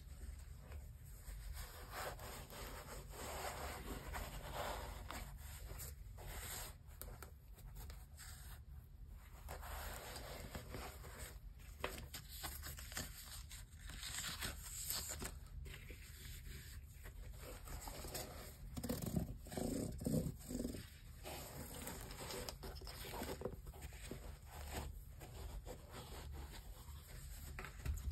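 Gloved hands handling a pair of suede and ripstop sneakers and their card hang tag: soft rustling and scraping with light knocks, a few louder bumps about two-thirds of the way through, over a low steady hum.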